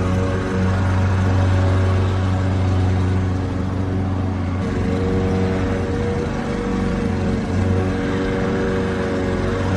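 Lawn mower engine running steadily at a constant hum, its pitch shifting slightly about halfway through.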